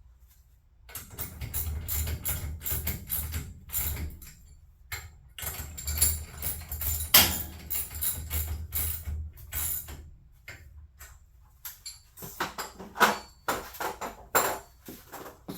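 Sectional garage door moving along its tracks: a dense run of clattering knocks over a low hum for about nine seconds, then a few sharper knocks near the end.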